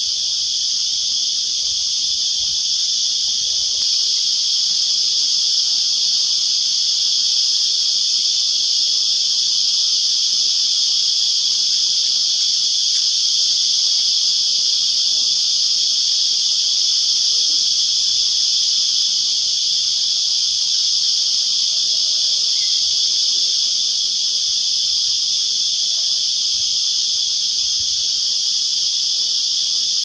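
Loud, unbroken high-pitched insect chorus, a steady shrill drone that holds level without pause.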